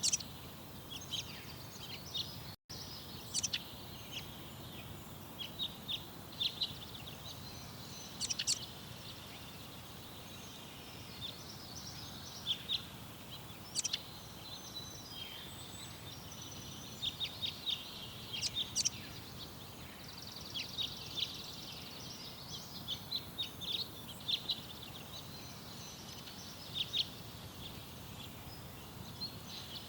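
Small songbirds chirping and calling, with short, scattered chirps and quick runs of notes, over a steady low background noise.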